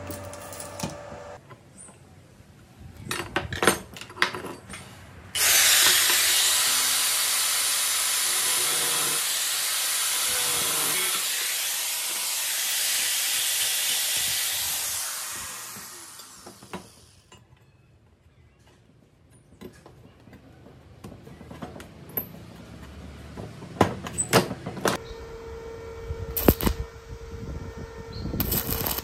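Angle grinder cutting through square steel tube: a loud, steady grind that starts suddenly about five seconds in, runs about ten seconds and then winds down. Scattered clicks and knocks of metal pieces being handled come before and after it.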